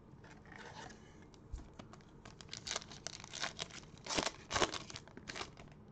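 Foil wrapper of a Panini Prizm basketball card pack being torn open and crinkled by hand: a run of sharp crackles, loudest about four seconds in.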